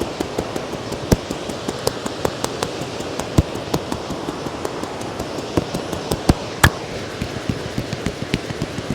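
Quick rhythmic tapping of hands on the head during a head massage, about five taps a second, with one louder slap near the end. Underneath is the steady rush of a river.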